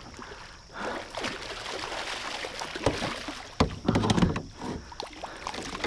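Musky thrashing in a landing net at the side of a canoe, splashing water, with a few sharp knocks against the canoe about three to four seconds in.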